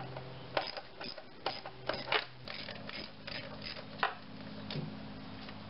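Socket ratchet clicking in short irregular runs as a 10 mm bolt is loosened, with sharper metal clicks and taps of the tool and bolt; the loudest click comes about four seconds in.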